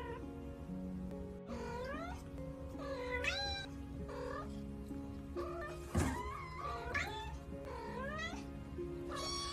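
Kittens meowing, about seven short high cries roughly a second apart, over background music, with one sharp knock about six seconds in.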